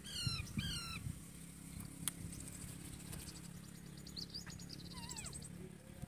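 Indian ringneck parakeets calling: two short harsh calls right at the start, then a fast, high chattering run with a few down-slurred notes about four to five seconds in.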